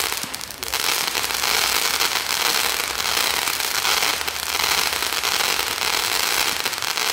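A consumer ground firework shooting sparks with a dense, continuous crackle of small pops, briefly easing about half a second in.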